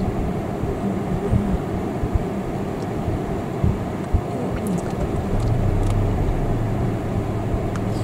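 Low rumble of a vehicle engine, with a steadier low hum setting in about five seconds in.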